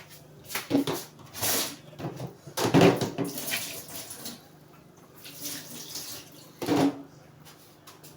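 Hands being rinsed off with water at a sink: several separate splashes, the loudest about three seconds in and a last short one near the end.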